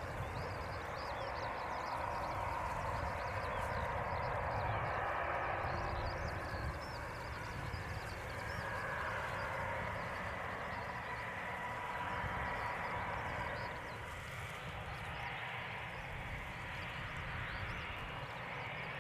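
Airbus A320-211's CFM56 jet engines running near idle during the landing rollout, a steady jet noise with a faint held whine, slowly easing in level as the airliner slows and moves away.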